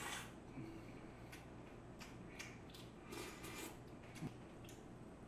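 The end of a slurp of janchi guksu noodles right at the start, then soft chewing with scattered small clicks and smacks.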